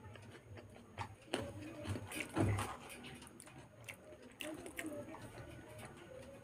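Close-up eating sounds from a person eating by hand: scattered wet mouth clicks and soft chewing noises, with a louder, deeper thump about two and a half seconds in.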